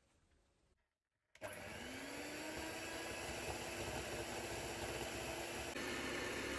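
Electric hand mixer switching on about a second and a half in and running steadily, its pitch rising briefly as the motor comes up to speed. The beaters are whipping egg white and powdered sugar into icing in a glass bowl.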